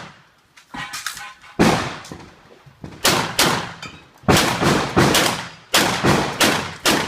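Shotgun firing a rapid string of about eight shots, several in quick pairs, each shot ringing out briefly.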